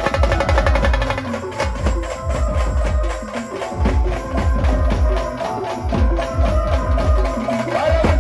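Live band music driven by a fast, dense percussion rhythm of drums and sharp clicking strokes, with heavy bass drum beats in repeated groups under a held melody line.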